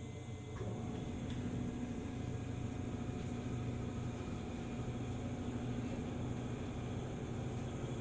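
Sound inside a JR 205 series 600 electric multiple unit: a steady low hum. About half a second in there is a click, then a steady droning tone joins and the sound grows a little louder.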